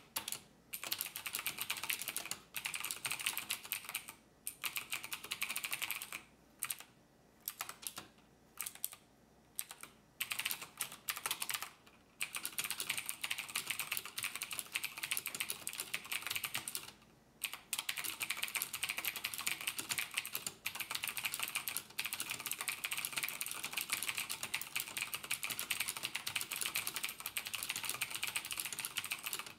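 Rapid typing on a computer keyboard, keys clattering in quick bursts broken by short pauses, with several stop-start stretches in the first ten seconds and a brief pause a little past the middle.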